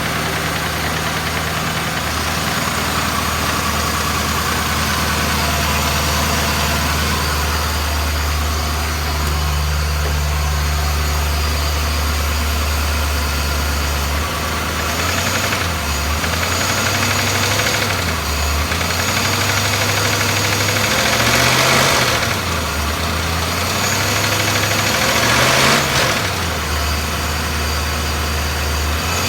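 BMW S62B50 V8 idling steadily, then blipped several times in the second half. It runs with a mechanical noise that the owner puts down to the VANOS or the timing chain, probably both, with the upper plastic chain guide partly destroyed.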